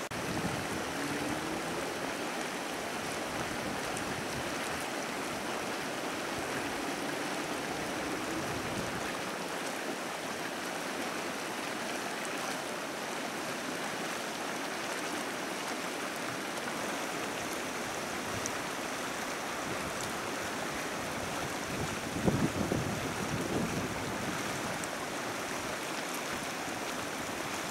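Turbulent Pool, a strongly acidic hot spring, churning across its surface with a steady rushing water sound. About 22 seconds in, wind briefly buffets the microphone with a low rumble.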